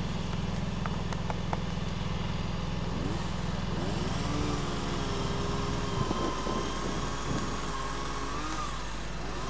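A small engine running with a steady low buzz, its pitch rising and falling. The low buzz drops out about six seconds in, leaving a higher whine that rises near the end.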